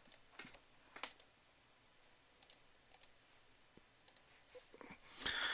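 A few faint computer mouse clicks, spaced out, as a PDF's zoom menu is opened and the zoom changed, with a soft noise of breath just before speech resumes near the end.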